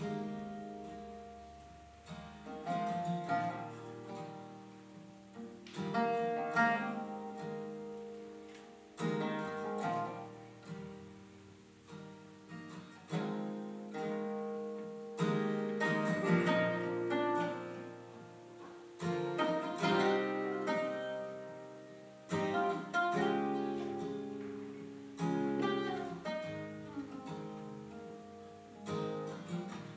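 Two acoustic guitars playing an instrumental passage without vocals: picked notes and strummed chords that strike and ring down, with a fresh attack every few seconds.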